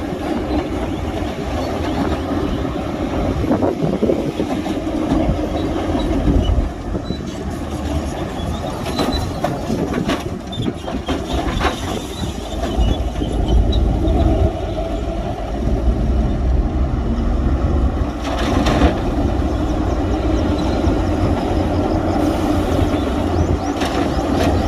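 Heavy diesel earthmoving machinery running steadily with a deep low rumble, with a few brief knocks or clanks midway and again later.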